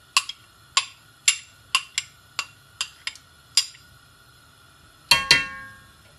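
A metal slotted spoon taps sharply against a bowl and pot about ten times in three and a half seconds, knocking grated carrot into a steel pot of soup. About five seconds in, the spoon clanks down against the steel pot with a brief metallic ring.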